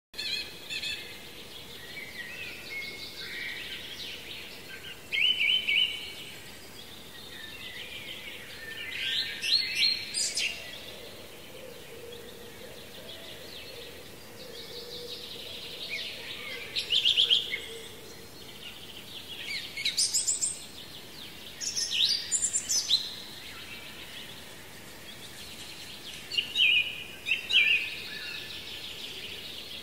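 Songbirds singing in an outdoor chorus: a steady background of distant chirping, with louder, quick trilled song phrases from nearby birds every few seconds.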